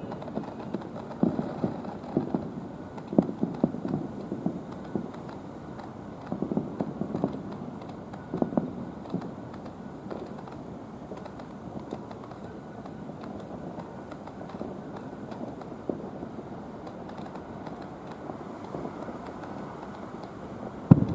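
Aerial fireworks going off at a distance: clusters of quick pops and crackles in the first half, thinning to scattered single pops over a steady outdoor background, with a sharp bang right at the end.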